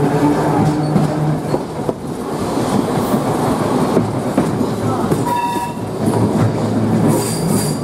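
1904 open-sided electric tramcar running on street track, its wooden body rattling and clattering steadily, with a brief high tone about five seconds in.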